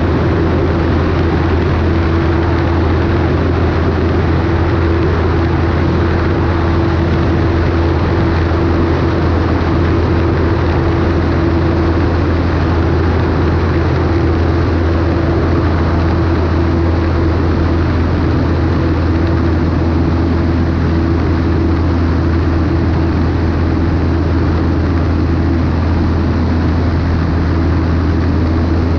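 Cessna 152's four-cylinder Lycoming engine and propeller droning at a steady pitch, with an even rush of wind over the wing-mounted camera.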